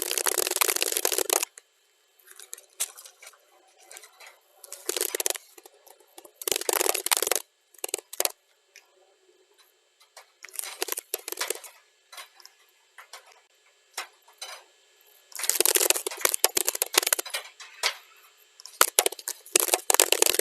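Computer keyboard typing, played back at double speed: rapid runs of key clicks in bursts of one to two seconds, with short pauses between them.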